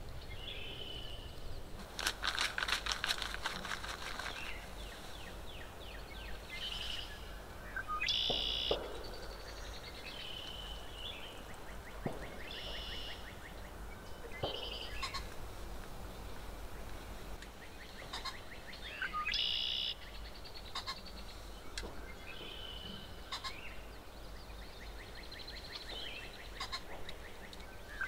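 Short high calls from an animal, each about half a second long, repeated every couple of seconds, with a longer raspy call a couple of seconds in. A faint low rumble runs underneath.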